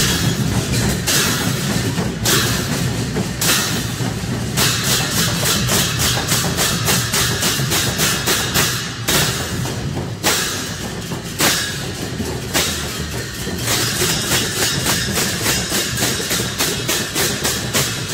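Newar dhime (dhimay) barrel drums and large hand cymbals played together in a procession. The cymbals clash in rapid, steady strokes over a continuous deep drumbeat.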